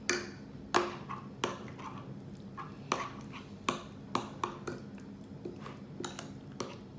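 Metal spoon clinking against a glass food dish while stirring tuna spread: about a dozen sharp clinks at uneven intervals, with softer taps between.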